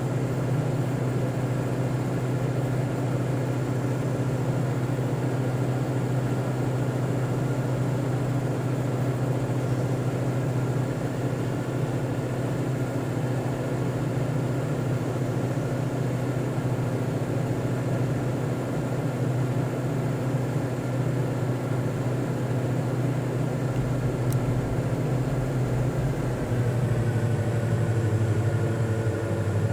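A steady low mechanical hum of several held tones, with no breath-like rise and fall, shifting slightly in pitch near the end.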